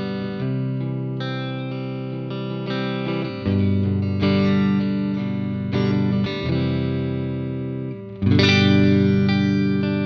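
Electric guitar played through a Moog MF Drive overdrive pedal: sustained overdriven chords and notes ringing and changing every second or so, with a louder chord struck about eight seconds in.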